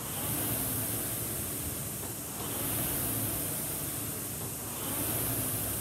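Concept2 indoor rower's air-resistance fan flywheel whooshing with each full-slide stroke, swelling on every drive about every two and a half seconds.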